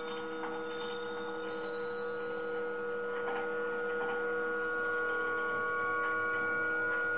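Improvised drone from handmade electroacoustic instruments: several steady tones held together, with faint small clicks and a brief high tone joining partway through.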